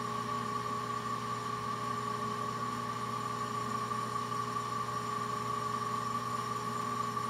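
Soft-bearing vertical balancing machine running steadily at 718 RPM on its reference run: an even electric hum with a few held tones that does not change.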